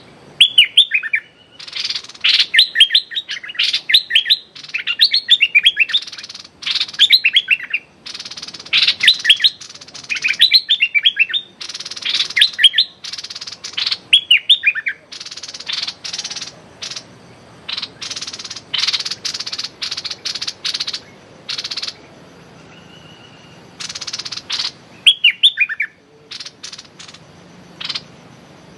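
Caged bulbul calling excitedly: quick runs of notes that fall in pitch, mixed with harsh, raspy chattering, in repeated bursts with short pauses.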